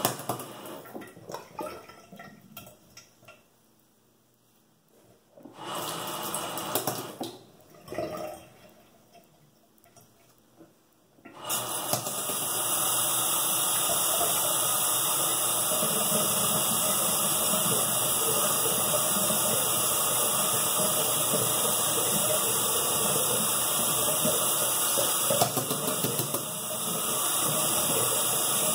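Bathroom sink tap running into the basin: a few short runs of water in the first seconds, then turned on about eleven seconds in and left running steadily.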